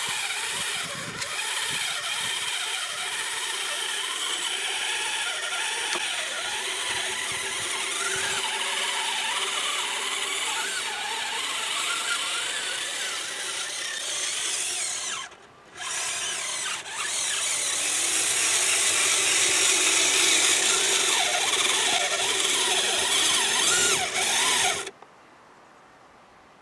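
Kyosho Blizzard RC tracked snow vehicle's electric motor and gearbox whining as it drives, the pitch rising and falling with the throttle. It cuts out briefly twice about halfway through, comes back louder, then stops abruptly near the end.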